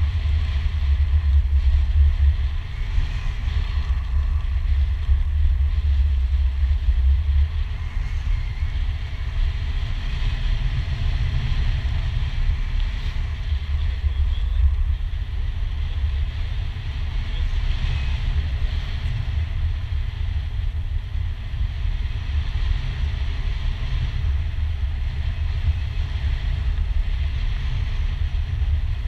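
Airflow buffeting the microphone of a pole-mounted camera during a tandem parachute descent under open canopy: a loud, steady low rumble with a light hiss above it, somewhat stronger in the first several seconds.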